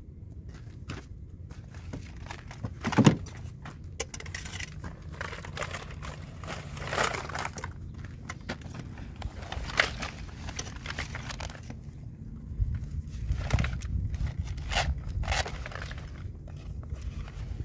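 Rustling, scraping and knocking of fishing gear and clothing being handled, with one sharp knock about three seconds in, over a steady low rumble.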